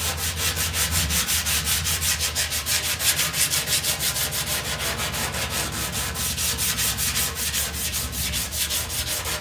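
Sandpaper, 80 grit, rubbed back and forth by hand under the flat of the palm over body filler on a Volkswagen Beetle's aftermarket front fender. It goes in quick, even strokes, about four a second, a steady rhythmic scratching. This is the filler being block-smoothed by hand toward a primer-ready finish.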